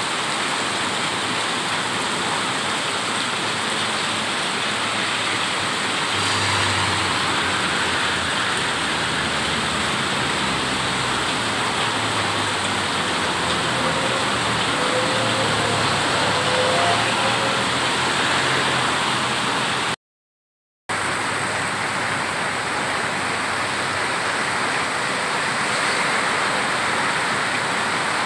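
Very heavy monsoon downpour, a dense, steady hiss of rain. The sound cuts out for about a second a little after two-thirds of the way through.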